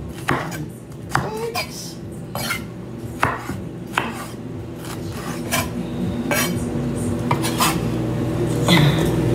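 Chef's knife slicing bell peppers on a wooden cutting board: sharp knocks of the blade meeting the board, irregular, roughly one every half second to a second.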